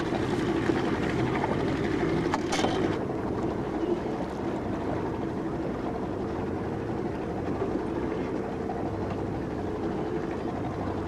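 Motorboat engine running steadily, a constant drone, with wind and water noise around it.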